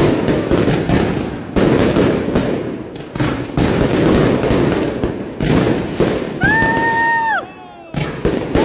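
Aerial fireworks bursting: rapid bangs and crackling from exploding shells. About two-thirds of the way through, a steady high whistle sounds for about a second and slides down in pitch as it stops.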